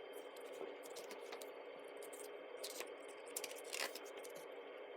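Faint rustling and a few light taps of paper being handled, over a steady low room hiss.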